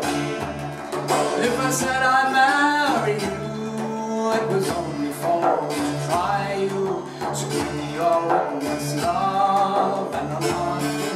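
A man singing over an Arabic frame drum struck by hand and an open-tuned Irish bouzouki strummed, with a steady low drone under the melody.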